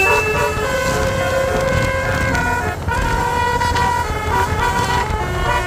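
Basuri telolet horn on a tour bus playing a melody: several horn tones held together and stepping from note to note, over a low rumble.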